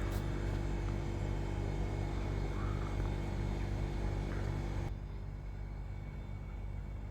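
A commercial fridge's refrigeration unit running with a steady hum, which cuts out abruptly about five seconds in as the unit shuts itself off again; a lower hum carries on after. The fridge will not stay on.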